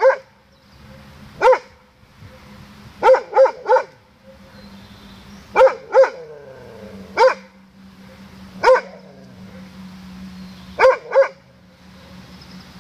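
Doberman barking at its own echo: sharp barks, singly and in quick runs of two or three, with pauses of a second or two between them.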